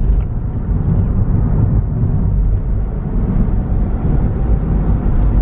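Steady low rumble of road and engine noise heard inside a moving car's cabin while driving along a highway.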